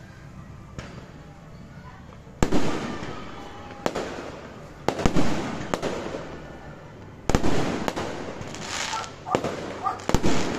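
Aerial fireworks shells bursting: a first sharp bang about two and a half seconds in, four more over the next five seconds, then a quick run of crackling pops near the end.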